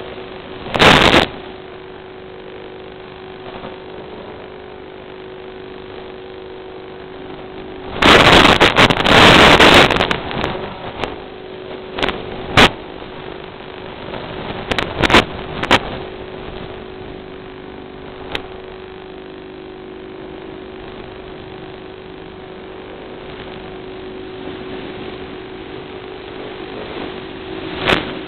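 Steady constant-pitch hum from an FPV aircraft's onboard video-transmitter audio. It is broken by loud bursts of hissing static where the analog video link breaks up, the longest about 8 to 10 seconds in, with shorter crackles later.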